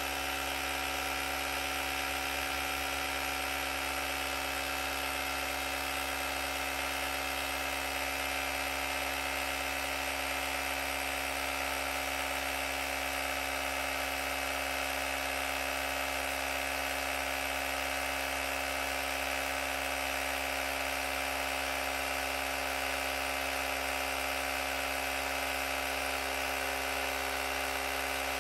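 AUTOOMMO cordless tire inflator's small electric compressor running with a steady, even buzz, pumping air into a flat front motorcycle tire as the pressure climbs.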